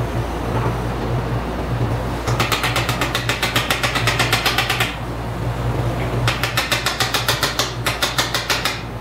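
Ratchet wrench clicking quickly and evenly, about ten clicks a second, in runs of two to three seconds with short pauses between them, while working on the transmission's mainshaft. A steady low hum sits beneath it.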